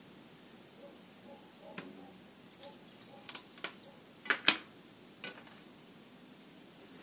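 Scattered light clicks and taps as a cracked plastic motorcycle fender and the hot soldering tool used to weld it are handled and turned, about six in all, the loudest a quick pair about four and a half seconds in, over a quiet background.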